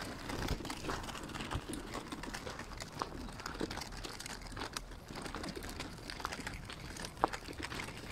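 Footsteps crunching and scuffing on a gravel path, with irregular small clicks.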